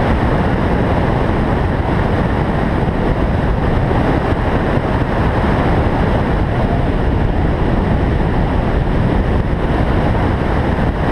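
Chevrolet Cobalt SS at speed through an autocross course: a steady, dense rush of wind buffeting the microphone, mixed with the car's engine and tyre noise.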